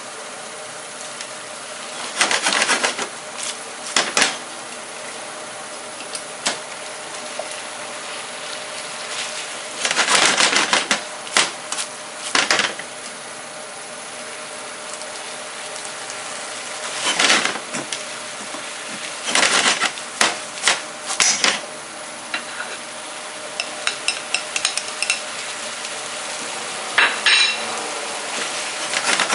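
A frying pan of clam and white-wine sauce sizzling steadily while cooked pasta is tossed in it with tongs. Repeated short bouts of scraping and clattering come from the tongs on the pan, loudest near the middle and toward the end.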